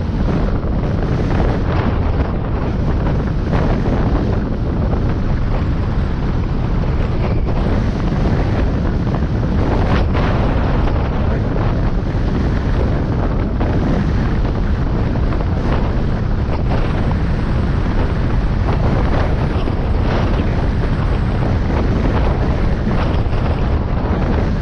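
Steady wind rushing over the microphone, over the low rumble of a car driving along a road.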